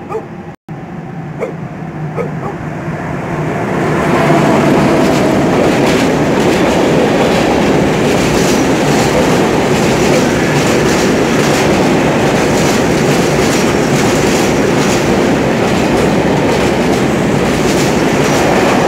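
Freight train of open-top wagons rolling past close by: the sound of wheels on rail builds over the first few seconds into a steady loud rumble with rapid clicking over the rail joints.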